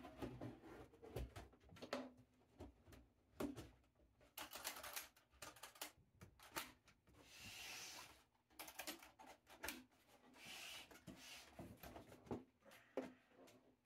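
Faint handling sounds as a carrying case is set over a device on a wooden workbench and moved about: scattered light clicks and knocks, with two stretches of scraping about halfway through.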